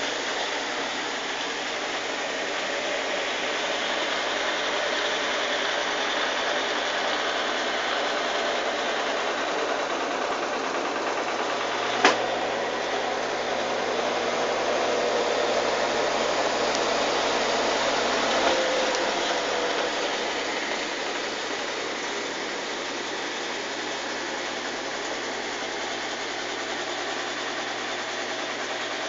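Consul washing machine spinning in an intermediate spin cycle: a steady whirring motor and drum noise, its low hum dropping away a little past halfway, with one sharp knock about twelve seconds in.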